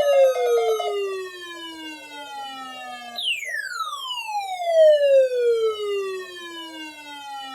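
Electronic siren tone that glides steadily down in pitch from high to low over about five seconds. About three seconds in it jumps back up and falls again. A buzzy, rapidly pulsing steady tone sounds under it and cuts off about a second in.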